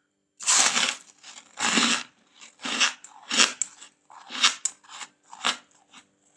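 Freezer frost crunching: two longer crunches in the first two seconds, then shorter crunches about every half second.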